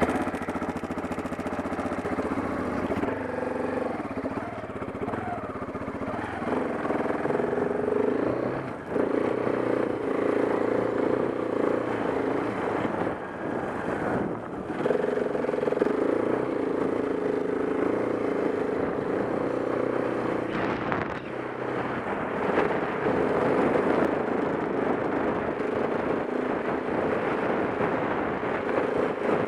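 KTM 690 Enduro R's single-cylinder engine running just after start-up, then carrying the bike off across sand. Its engine speed rises and falls several times as the throttle and gears change.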